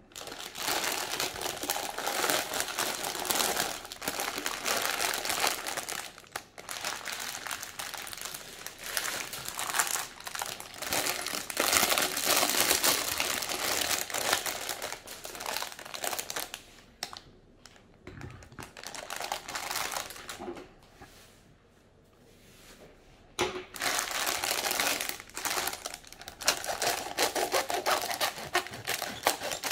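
Clear plastic bags of LEGO pieces being handled and crinkled, with a quieter lull past the middle before the crinkling picks up again. Near the end, scissors snip into the plastic bag.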